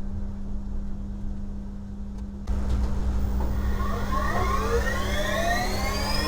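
CNC router spindle spinning up: from about halfway, a whine with several overtones rises steadily in pitch over a steady low hum.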